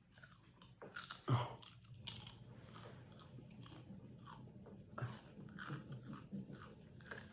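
A person chewing popcorn with their mouth close to the microphone: quiet, irregular crunches, the loudest one about a second in.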